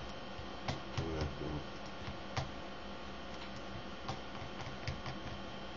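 A handful of separate sharp clicks from a computer mouse, a second or more apart, over a steady electrical hum.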